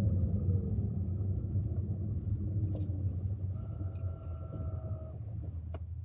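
Car engine and road rumble heard from inside the cabin, the engine's pitch gliding down and the sound growing quieter as the car slows.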